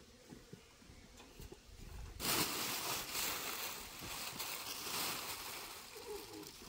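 Clear plastic packaging film rustling and crinkling as it is handled close by, starting abruptly about two seconds in and going on, uneven, to the end.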